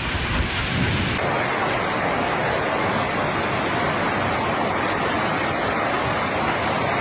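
Heavy storm downpour of rain and hail, a steady rushing noise. A lower rumble in the first second gives way suddenly to a brighter, even hiss.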